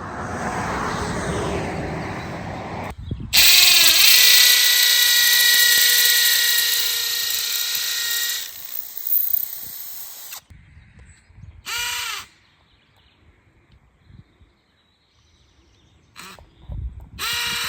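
Power drill boring mounting holes into the wall for an acrylic sign: a run of about three seconds, then about five seconds of loud, steady drilling with a high whine, then a few short bursts after it quietens.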